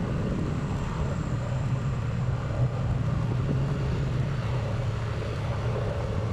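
A vehicle's engine running steadily while travelling, a constant low drone with road noise.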